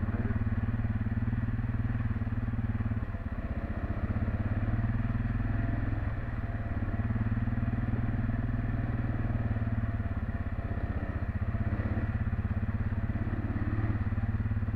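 Quad bike (ATV) engine running steadily as it rides along, with a brief dip in loudness about three seconds in.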